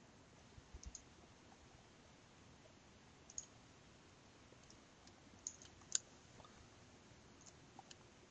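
Near silence with a few faint, scattered clicks, the sharpest about six seconds in.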